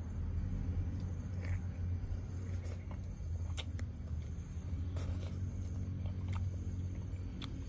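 A person eating with his hands: scattered sharp chewing and smacking clicks, a little under one a second, over a steady low rumble.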